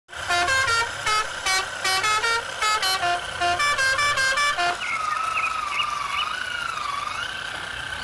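A musical horn plays a quick tune of short, beeping notes at changing pitches, then, from about halfway through, a single sustained tone wavers slowly up and down.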